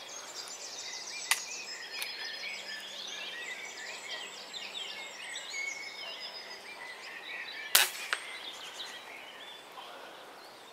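Small birds chirping and singing all through. About eight seconds in comes one sharp crack, the loudest thing here, with a fainter click just after it: an air rifle shot.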